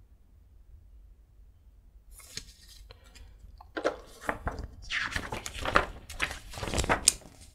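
Game cards being handled and set into a box insert tray, with irregular rustling, scraping and light knocks that start about two seconds in and are busiest near the end.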